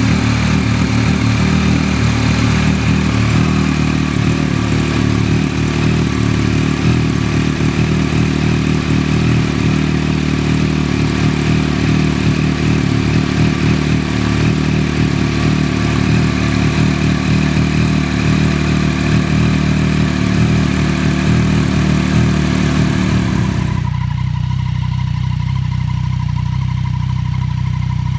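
Yamaha MT-09's inline three-cylinder engine and exhaust running at a steady idle, with no revving. About 24 s in the note changes abruptly to a duller, smoother engine sound.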